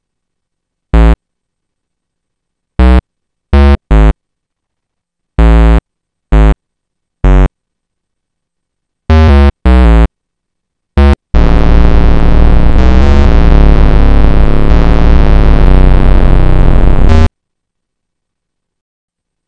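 Square-wave chiptune synth in the MilkyTracker tracker: about ten short single notes sound one at a time, each previewed as a note is typed into the pattern. About eleven seconds in, the pattern plays back for some six seconds, a square-wave melody over a repeating square-wave bass line, and stops abruptly.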